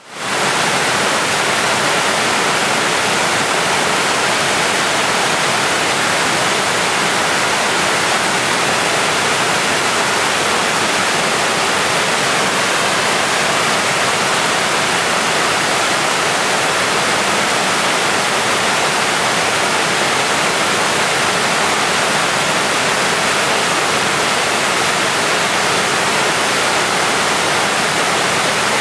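Waterfall cascading over stepped rock ledges into a pool: a loud, steady rush of falling water.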